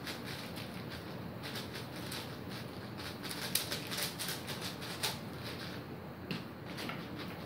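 Cubicle Magnetic WuShuang 5x5 speed cube being turned very fast by hand: a continuous rattle of quick plastic clicks and clacks from the layer turns, densest about halfway through.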